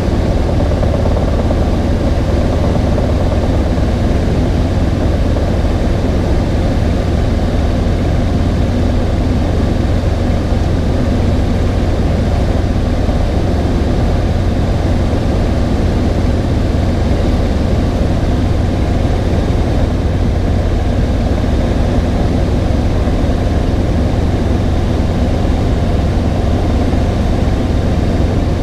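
Robinson R22 helicopter in cruise flight, heard from inside the cockpit: a loud, steady drone of rotor and piston engine, heaviest in the deep bass, with no change in level.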